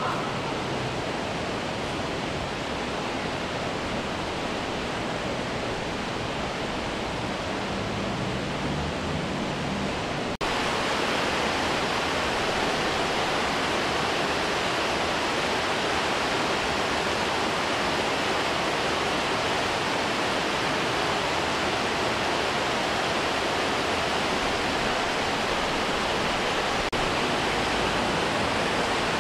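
A steady rushing noise. About ten seconds in it cuts to louder, brighter rushing water from a shallow, rocky river spilling over a low weir.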